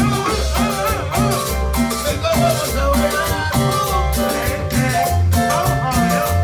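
Live norteño band music, with button accordions playing the melody over an alternating bass line, drums and cymbals keeping a steady dance beat.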